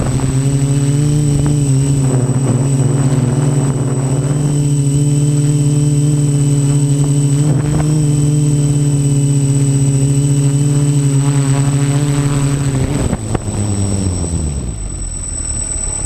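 Quadcopter's electric motors and propellers humming steadily at close range, with a thin high whine above. About 13 seconds in the hum falls in pitch and fades as the motors spin down on landing.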